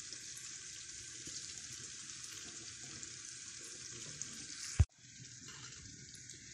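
Chicken pieces deep-frying in hot oil: a steady sizzle. About five seconds in, a single sharp thump cuts it off, and a fainter hiss follows.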